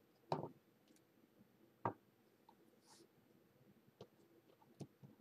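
Faint clicks and knocks of a router spindle's plastic housing and parts being handled and fitted together by hand. There are a few scattered taps, the strongest about a third of a second in and just before two seconds in.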